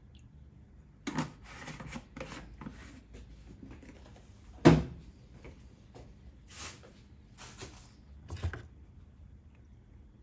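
Handling noises: a scattered run of knocks, clunks and light scraping, with one sharp clunk near the middle that is the loudest sound.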